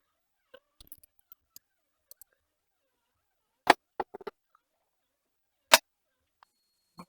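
Handling noises: scattered light clicks, then a few sharp knocks, two of them louder, as objects are picked up and set down.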